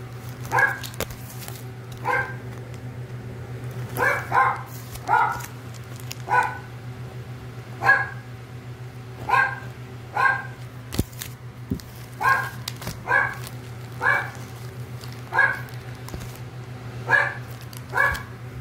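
Short animal calls repeated about once a second, sometimes in quick pairs, over a steady low hum.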